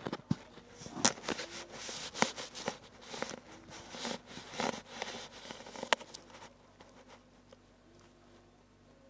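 Scratchy strokes and taps of a drawing tool on paper, irregular and uneven, stopping about six and a half seconds in.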